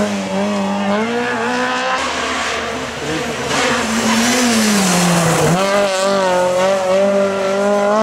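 Rally car engines revving hard through a tight junction. One engine note dips sharply about five and a half seconds in as the car brakes for the corner, then climbs again as it accelerates away.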